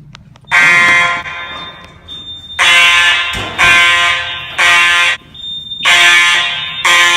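Fire alarm horn sound effect: a loud, buzzy horn sounding in repeated blasts just under a second long. There is one blast, then a run of three, then two more.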